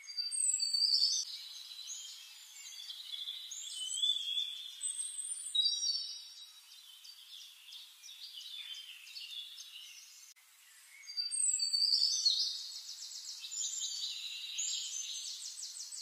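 A songbird singing long, varied phrases of clear whistles and fast trills, loudest at the start and again about eleven seconds in.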